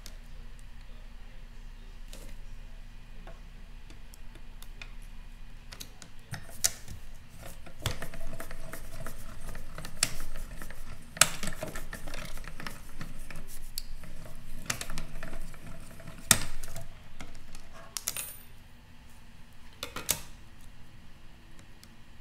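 Plastic cutting plates and thin metal dies clicking and clattering as they are handled and cranked through a manual die-cutting and embossing machine. Sharp clicks come every few seconds, with a busier stretch of continuous clatter in the middle.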